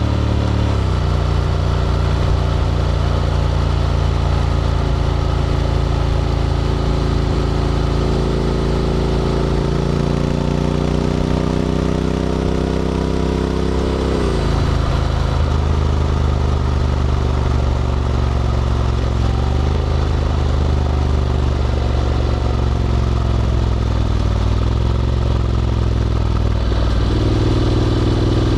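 Honda X-ADV 750 parallel-twin engine running through an SC-Project titanium slip-on exhaust while riding. The engine pitch drops about a second in and climbs slowly through the middle. It falls sharply about halfway through, then holds fairly steady and rises again near the end.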